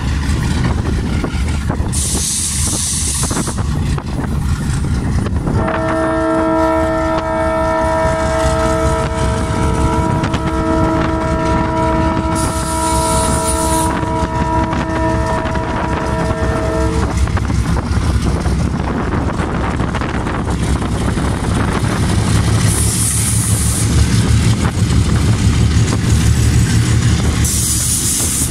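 Diesel locomotive sounding its horn in one long chord of several tones for about eleven seconds, over the steady low rumble of its engine. The engine rumble grows louder near the end as the locomotive passes close, and a few short hisses break in.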